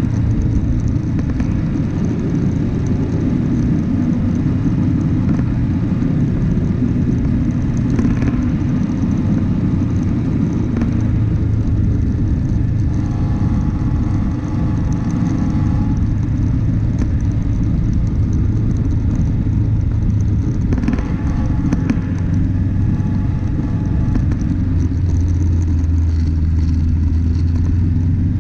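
Vehicle driving off-road on a rough dirt track: a steady low rumble of engine and tyres, with a few light knocks along the way.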